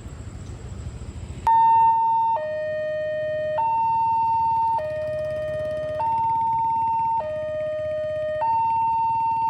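Railway level-crossing warning siren starting suddenly about one and a half seconds in, over low traffic noise: an electronic two-tone alarm alternating high and low, each tone held just over a second, signalling that the crossing gate is closing for an approaching train.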